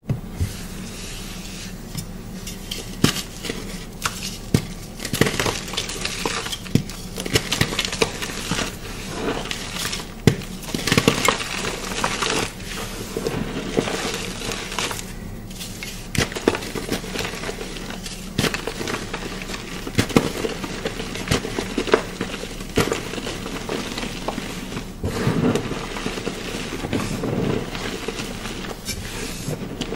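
Chalk being crushed and crumbled, a dense, irregular run of crunching and crackling with sharp snaps throughout.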